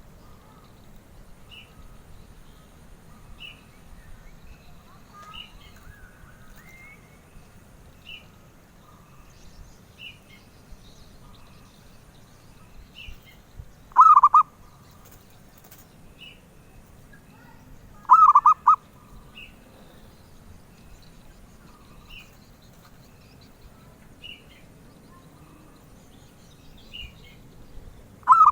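Zebra dove (perkutut) cooing: two loud phrases of quick repeated notes, one about halfway through and another a few seconds later, with a third beginning at the very end. Faint short high chirps recur every second or two between them.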